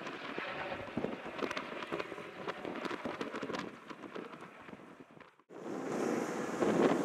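A two-bladed firefighting helicopter passing low overhead, its rotor chop coming as fast, uneven pulses over engine noise. About five seconds in, the sound cuts off abruptly and gives way to wind on the microphone.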